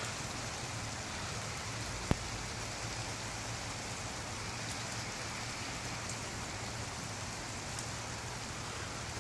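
Steady rain falling during a thunderstorm, with one sharp click about two seconds in.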